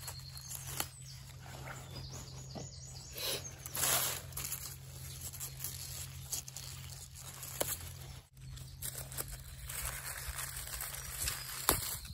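Wild garlic leaves and stems rustling and brushing against a rubber-gloved hand as it parts them, in short scattered swishes with a few light clicks.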